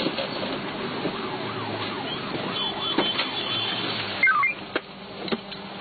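Ambulance siren sweeping quickly up and down in pitch, about twice a second, over the vehicle's running noise. About four seconds in it stops, followed by a loud knock and a few clicks.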